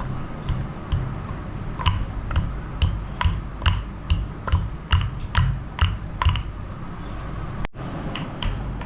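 Pestle pounding dried spices (dry ginger, long pepper, licorice root and lesser galangal) in a mortar: a run of sharp knocks, about two a second, that stops about six and a half seconds in, with a few fainter taps near the end.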